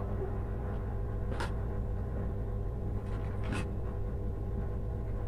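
Hands twisting stripped copper wire ends together and handling a pair of pliers: soft scratching and rustling, with two brief scrapes about one and a half and three and a half seconds in, over a steady low hum.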